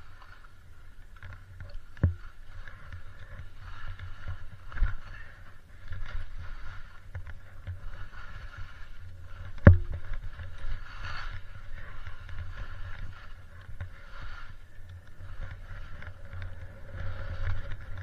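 Osgo Spencer skis (110 mm waist) sliding and turning through soft, tracked forest snow, a continuous hiss over a low rumble. A few sharp knocks break in, the loudest about ten seconds in.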